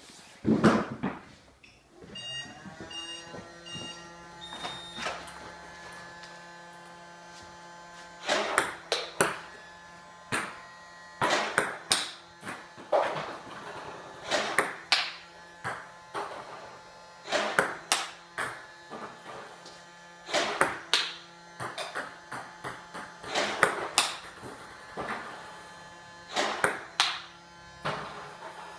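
Table tennis ball struck with a rubber bat in repeated backhand chop and loop strokes: sharp pocks, often two or three close together, about once a second from about eight seconds in. Under them runs a steady motor hum that winds up about two seconds in, with a few short electronic beeps just after it starts.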